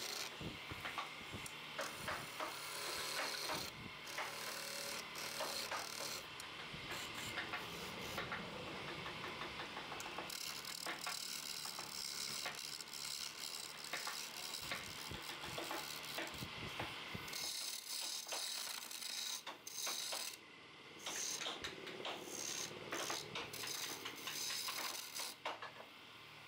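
Wood lathe turning a wooden chair leg, with a hand chisel scraping and chattering against the spinning wood. About two-thirds of the way through, the deeper part of the sound drops away, leaving a thinner scraping.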